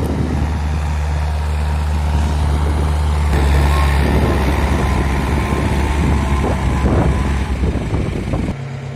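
Farm tractor's diesel engine running steadily, a little louder through the middle; about eight and a half seconds in its note drops suddenly to a quieter, lower hum.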